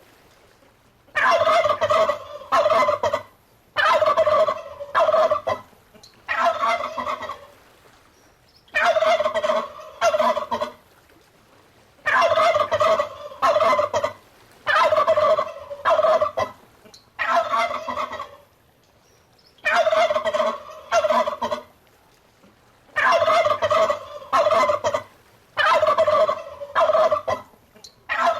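Domestic turkey gobbling: loud, rapid gobbles come in bouts of one to two seconds with short pauses between them, about ten bouts in a row.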